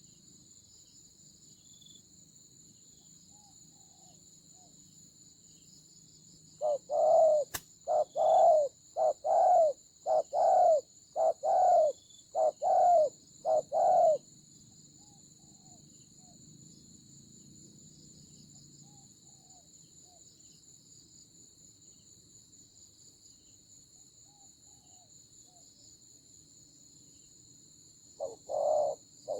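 Spotted doves cooing: a run of about ten deep coos over some seven seconds, then another short run near the end. A steady high drone of insects runs underneath.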